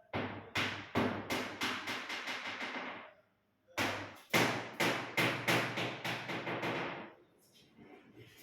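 Two runs of sharp, rapid knocks or taps, about four a second, each lasting about three seconds with a short pause between them.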